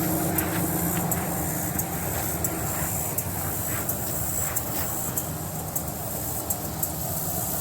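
A steady mechanical hum like a running motor vehicle, with light irregular ticks over it.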